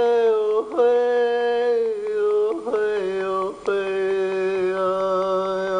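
A voice chanting long, held notes, each sustained for one to two seconds with brief breaks and small shifts of pitch between them.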